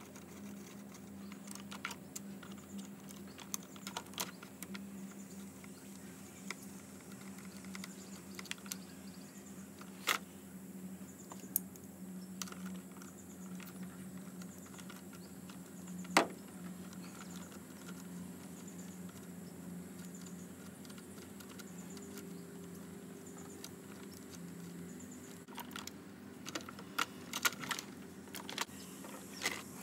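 Scattered clicks and clinks of plastic covers and a metal spanner as a car battery's fuse box cover is opened and a battery terminal is loosened, over a steady low hum. The clicks come thicker near the end.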